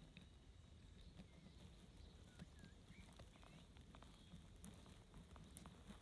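Near silence: faint ambient background with scattered soft ticks and a few faint short chirps around the middle.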